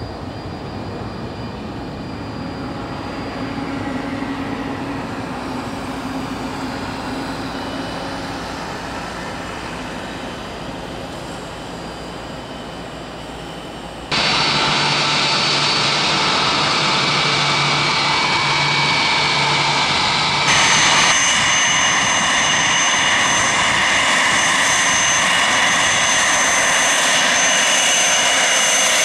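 Jet engines of a business jet climbing away, steady and slowly fading. Then, after an abrupt cut, the twin rear-mounted turbofans of a business jet taxiing close by, much louder, with a steady high whine over the engine noise.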